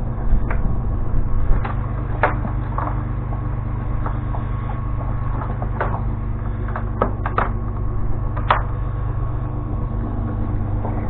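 A steady low motor hum, like an idling engine, with scattered sharp clicks and knocks on top, several close together about seven seconds in.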